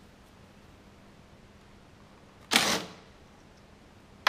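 A metal hand tool being fitted to a Honda Cub's clutch: mostly quiet, with one short, sharp clack about two and a half seconds in and another at the very end.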